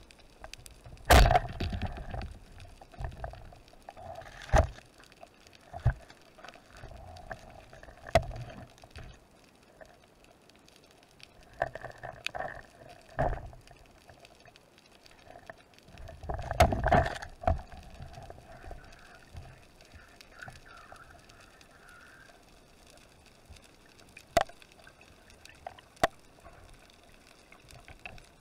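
Underwater sound of spearfishing heard through a camera housing: a series of sharp knocks and clacks, the loudest about a second in and again around seventeen seconds, amid water sloshing and gurgling.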